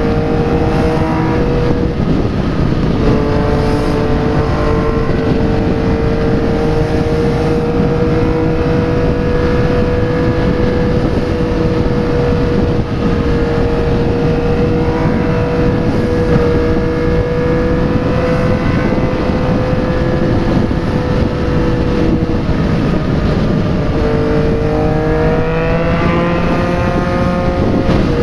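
Yamaha MT-09's inline three-cylinder engine running at highway cruising speed through a replica Akrapovic aftermarket exhaust, mixed with wind and road rush. The engine note holds steady, dips briefly a couple of seconds in, and near the end drops and then climbs as the bike speeds up.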